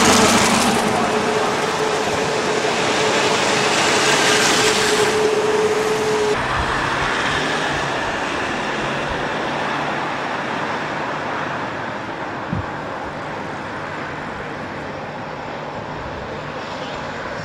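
Road traffic noise, with veteran cars driving close by, loudest at the start and fading as they pull away. A steady whine stops about six seconds in, and there is a single short knock later on.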